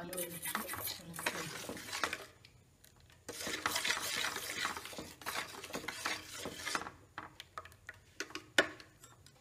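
A metal spoon stirring and scraping a melted chocolate, sugar and milk mixture around a stainless steel bowl, in long stretches with a short pause about two seconds in. Near the end the stirring gives way to scattered clinks of spoon on bowl, one of them sharp and loud.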